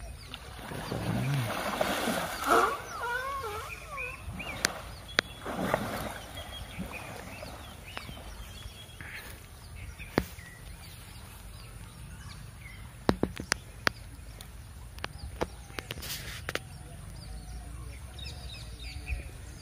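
Outdoor ambience with birds calling: a louder run of bending calls near the start, then scattered chirps, with a few sharp clicks and a low steady background.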